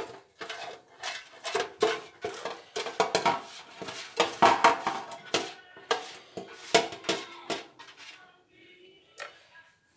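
Silicone pastry brush sweeping and dabbing ghee over the bottom of a disposable aluminium foil tray: a quick, irregular run of scrapes and crinkly metallic foil rattles that stops about eight seconds in.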